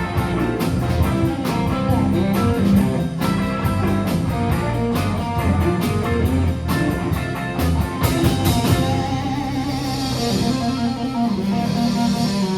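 Live rock band playing without vocals: electric guitar, bass and drum kit on a steady beat. After about nine seconds the beat stops and cymbals wash over held chords as the song winds to its end.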